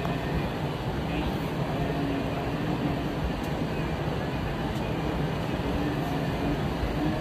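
Wildebeest herd stampeding through a shallow river: a steady rumble of many hooves and splashing water, with a few short, low calls in it.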